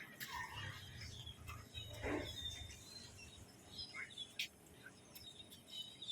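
Birds chirping in short, scattered calls, with a few faint clicks.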